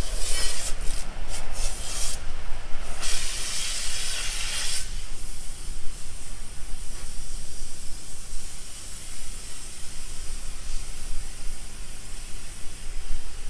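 Wind rumbling on the microphone at an open waterfront, with loud hissing rushes in the first five seconds.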